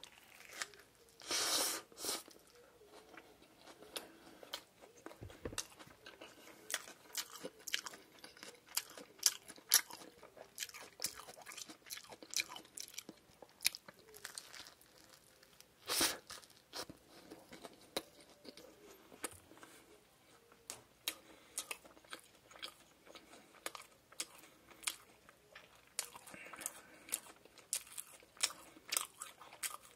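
Close-miked eating of a shrimp burger: a crunchy bite into the fried, breaded shrimp patty and bun, then steady chewing with many small crunches and wet clicks. Big crunching bites come about one and a half seconds in and again about sixteen seconds in.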